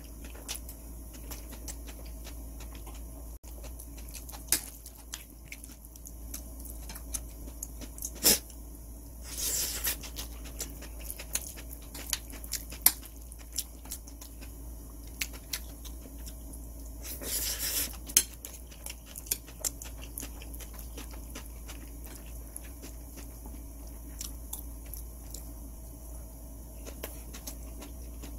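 A metal spoon clinking and scraping on a ceramic plate while food is mixed and eaten, with scattered small knocks and a couple of short hissing noises about ten and eighteen seconds in.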